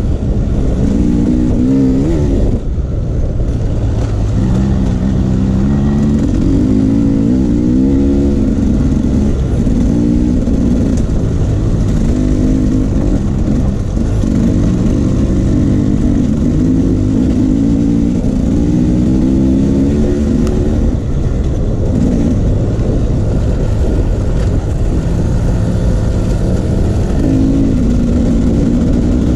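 Off-road vehicle engine running under constantly changing throttle, its pitch rising and falling every second or two as it is revved and eased off, with no break.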